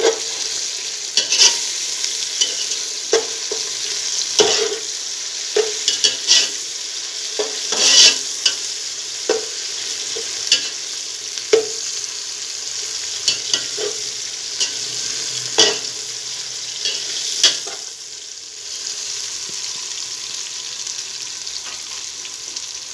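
Sliced onions and ginger-garlic paste sizzling in hot oil in a metal pot, with a spoon scraping and knocking against the pot every second or two as they are stirred. The stirring stops a few seconds before the end and the sizzle goes on a little quieter.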